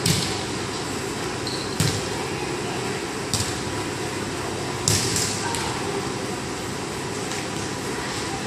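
A volleyball being played back and forth, each contact a sharp slap that echoes through a large gymnasium. There are about four clear hits, roughly a second and a half apart, with a couple of lighter knocks right after the fourth, over a steady hall noise.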